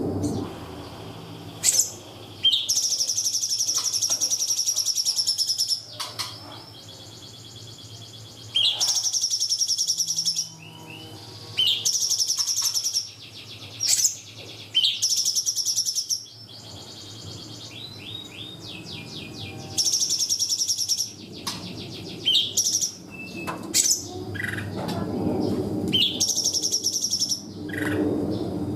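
Cungkok songbird singing in rapid, high-pitched trilled bursts ("tembakan"), each one to three seconds long, with natural pauses between them, about eight bursts in all.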